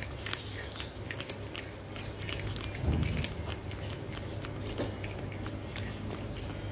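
Kitten chewing and crunching on a piece of meat, in a run of irregular wet clicks and crunches. A dull thump about three seconds in.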